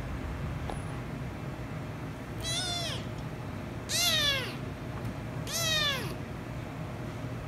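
A young orange-and-white kitten meowing three times, about a second and a half apart. Each call is high-pitched and rises, then falls away.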